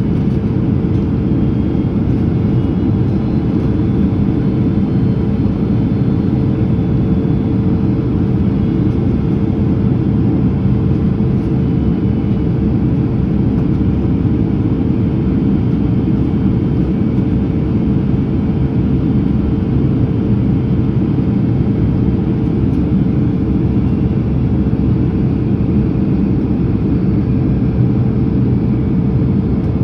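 Cabin noise inside a Boeing 767-300ER on approach with its slats out: a steady roar of engines and airflow with a constant hum running through it.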